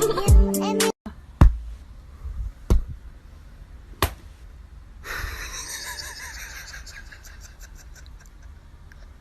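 Hip-hop music cuts off abruptly about a second in. Then come three sharp knocks or slaps about a second and a half apart over a low rumble, and from about halfway a steady hiss.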